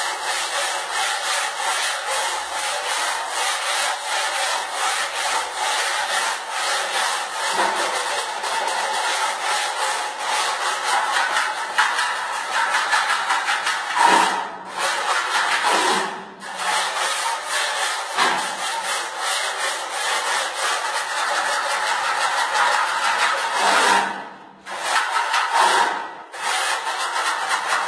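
A flat hand trowel scraping fast and hard over a rough sand-and-cement wall: a continuous gritty rasping, stroke after stroke, as loose sand and splattered plaster are knocked off before the first coat. The scraping pauses briefly a few times.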